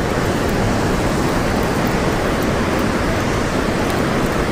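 Steady rushing of churning whitewater pouring out below a dam.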